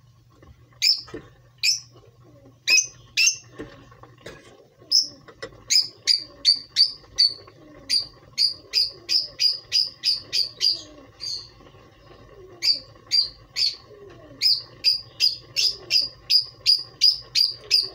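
Small bird chirping: short high chirps, scattered at first, then in quick runs of about three or four a second, over a faint low steady hum.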